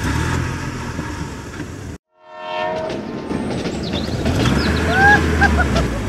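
Dubbed vehicle rumble sound effect for toy monster trucks, cutting off abruptly about two seconds in. As the rumble resumes, a brief horn-like tone fades in, and a few short chirps come near the end.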